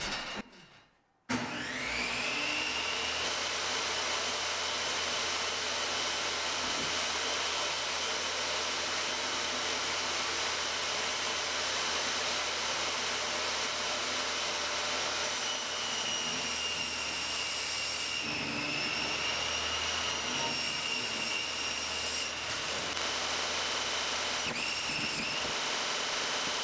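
Table saw motor switched on about a second in, spinning up with a rising whine to a steady high running tone. It keeps running while a sheet of XPS foam board is fed through the blade, and the tone shifts slightly a few times during the cut.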